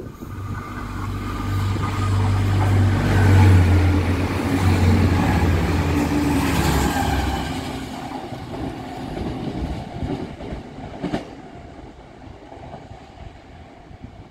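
Irish Rail 29000 class diesel multiple unit passing through the station without stopping: its underfloor diesel engine drone and wheel-on-rail noise build up, peak about three to five seconds in, then fade as it draws away. A single sharp click about eleven seconds in.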